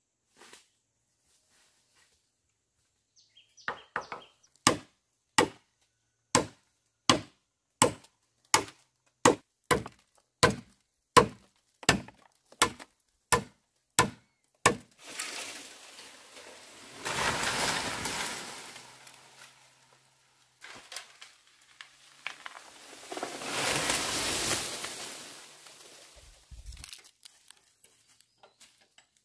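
Bamboo being chopped with a blade: a steady run of sharp strikes, about two a second, for some eleven seconds. Two longer noises follow, each swelling up and dying away over a few seconds.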